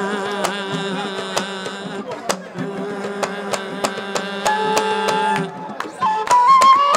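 Hadhrami zarbadi wedding music: sharp drum and hand-clap beats, about two to three a second, under a held melodic tone. Near the end the level dips briefly and a rising piped melody comes in.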